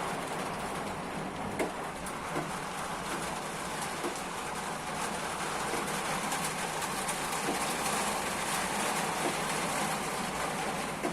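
Heavy rain pouring down steadily in a thunderstorm, an even rushing hiss with scattered sharp taps.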